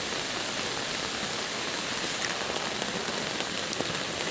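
Steady rain falling, an even hiss with a few sharp drop ticks now and then.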